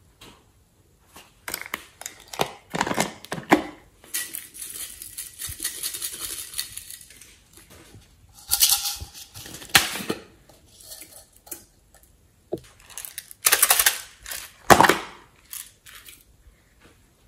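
Small plastic toy containers handled and opened: sharp plastic clicks, knocks and rattles in several separate bouts, with a rustle as glitter and small bits are tipped out of a plastic case onto slime near the end.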